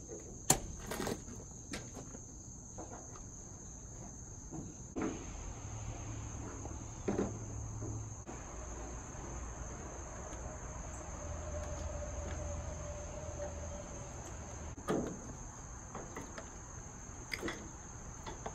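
Steady high-pitched insect trill throughout, with a few sharp knocks and clicks from hand work with a screwdriver on the pickup's taillight.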